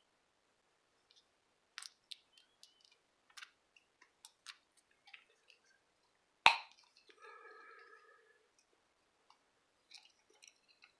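Plastic pre-roll tube and its cap being worked open by hand: a run of small clicks and snaps, with one loud sharp click about six and a half seconds in. A cat meows briefly just after the loud click.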